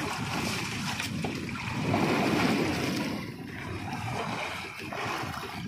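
Open-sea water sloshing and wind rushing, an uneven noisy wash that rises and falls.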